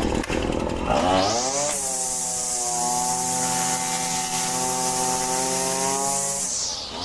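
Husqvarna 525L string trimmer's two-stroke engine revved from idle to full throttle about a second in, held steady at high speed, then let fall back near the end. It is being tested after a carburettor adjustment, a new air filter and greasing of the gear head.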